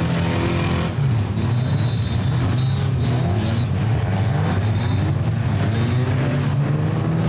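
Several stock car engines running and revving together, their pitches rising and falling over one another.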